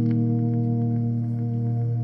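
Electric guitar chord ringing out through a Spaceman delay pedal, held and slowly fading without a new strum.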